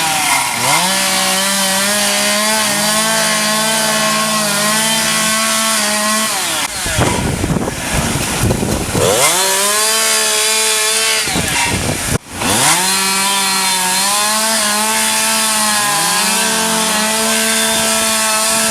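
Chainsaw engine running at high revs, the throttle let off and opened up again a few times, so the pitch drops and climbs back.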